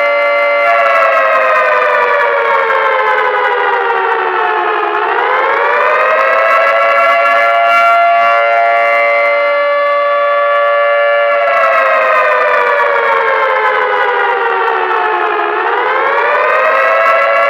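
Emergency-alarm siren wailing, a loud tone with many overtones. It slides slowly down in pitch for about four seconds, sweeps back up and holds steady for several seconds, then slides down and sweeps up again near the end.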